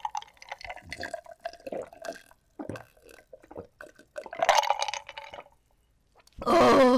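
Drinking water in gulps from a large glass mug: a run of small swallowing and liquid sounds, then a louder stretch a little past halfway. A short voice sound comes near the end.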